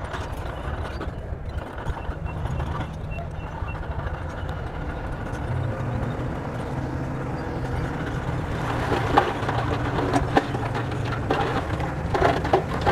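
Bulldozer's diesel engine running steadily, with a run of clattering knocks from about two-thirds of the way through.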